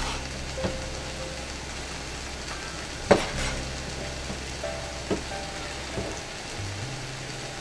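Kitchen knife cutting through raw chicken thigh, knocking on the cutting board about four times, the loudest about three seconds in. Under it runs a steady sizzle of meat frying in the pot.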